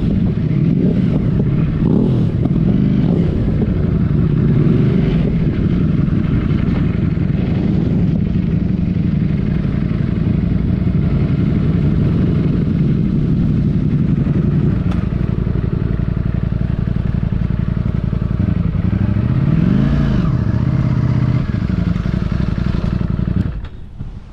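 Motorcycle engine running steadily while riding, its pitch rising and falling with the throttle, briefly around two seconds in and again near twenty seconds. The sound drops away sharply near the end.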